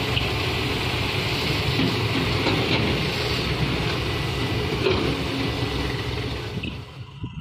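Heavy earthmoving machinery's diesel engine running steadily with a low rumble; the sound drops away sharply about seven seconds in.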